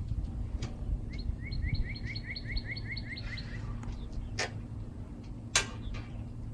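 A bird singing a quick trill of about eleven rising chirps, roughly five a second, over a steady low rumble. Two sharp knocks follow a second or so apart, the second the louder.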